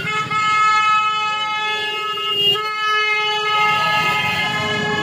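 Vehicle horn held down in two long steady blasts, the first breaking off about two and a half seconds in, over the low hum of street traffic.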